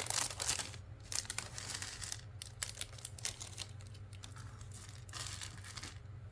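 Plastic bag of LEGO pieces crinkling in the hands as it is torn open and handled, in irregular rustling bursts.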